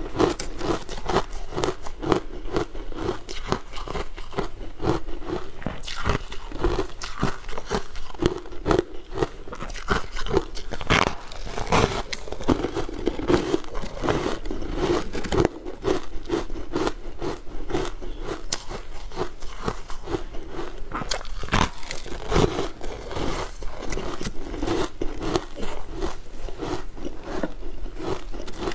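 Close-miked crunching and chewing of frost-covered frozen food, with a dense run of crisp bites and crackles.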